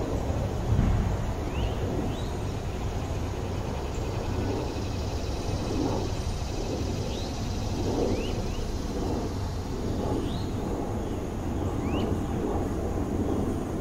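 Open-air ambience: a steady low rumble, with a small bird giving short, quick, rising chirps every second or two.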